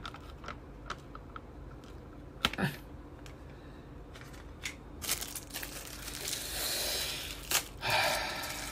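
Packaging handled over a yogurt cup: light clicks and taps of the plastic cup and foil lid, then a long crinkling, tearing rustle about five seconds in as a plastic spoon wrapper is torn open. A short vocal sound from the man about two and a half seconds in.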